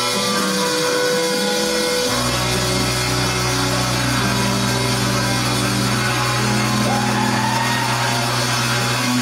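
Music with sustained instrument tones; a deep bass note comes in about two seconds in and drops out near the end.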